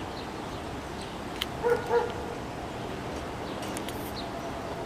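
A dog barking twice in quick succession, two short barks about a third of a second apart, roughly two seconds in, over a steady background hum.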